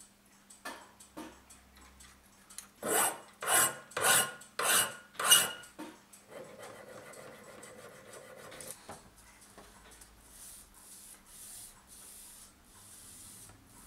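Hand metalwork on small clock parts: about five quick, loud strokes of a hand file about three seconds in, then a softer rasp. Near the end come slower, fainter rubbing strokes as a small brass plate is rubbed flat on abrasive paper.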